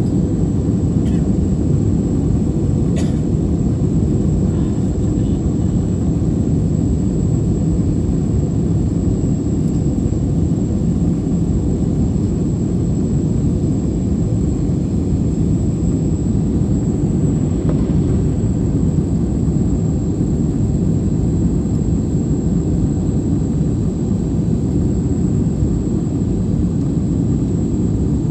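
Steady cabin noise of a jet airliner in flight, heard from inside the cabin: a constant low rumble that does not change.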